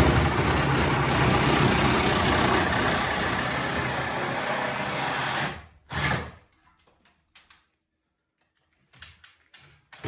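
Reciprocating saw running hard through old ceiling timber, a loud, rasping buzz that cuts off about five and a half seconds in, followed by a short second burst. Then only a few small knocks.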